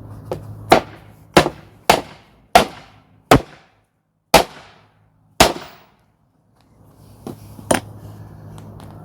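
Hammer driving nails into a timber plank: seven sharp blows a little under a second apart, then after a pause a light tap and one more hard blow.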